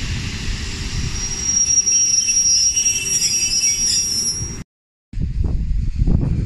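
Train running through a station, a low rumble with a high, thin squeal of steel wheels on the rails starting about a second and a half in. The sound cuts off abruptly near the end; after a brief silence, low rumbling resumes.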